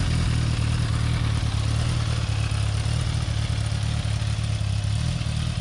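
Kawasaki ZX-10R inline-four engine running at a steady speed through an Akrapovic link pipe and the stock silencer.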